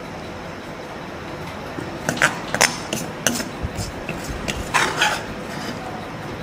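Metal spoon clinking and scraping against a dish: a few sharp clinks about two seconds in, then lighter taps and a short scraping rattle near the end.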